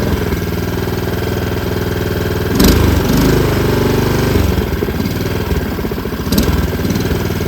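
Honda HRN216 push mower's single-cylinder engine running steadily at full throttle, freshly cold-started, with the blade not engaged. Two brief knocks about two and a half and six seconds in.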